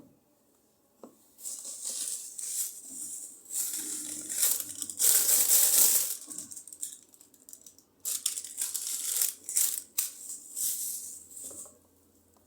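Rustling and rubbing noises in irregular bursts, loudest about five to six seconds in, with a short click just before they begin.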